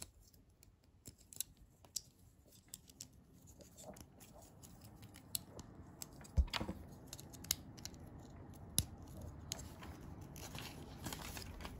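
Small plastic LEGO bricks and plates being handled and pressed together, a scatter of sharp light clicks, the strongest about six and a half seconds in.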